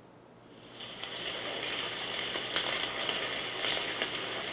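Recorded rain ambience played through the SKT NUGU Candle smart speaker's ASMR function, fading in about a second in to a steady hiss of rainfall with a few sharper drip ticks. The hiss is one that he likens to frying at a snack bar.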